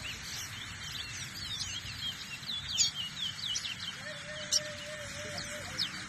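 Caged seed finches singing rapid twittering songs of quick, high chirps that rise and fall, in a bird-song race where each song is counted. About four seconds in, a steady low tone sounds for nearly two seconds.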